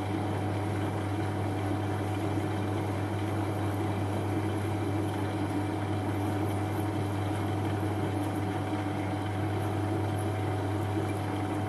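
Metal lathe running steadily at its lowest speed, with a 7 mm cobalt drill boring into hard steel: a steady low hum with an even cutting noise over it.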